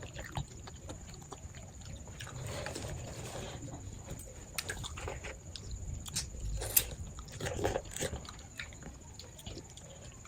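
A person chewing and eating close to the microphone, with scattered small clicks and mouth noises.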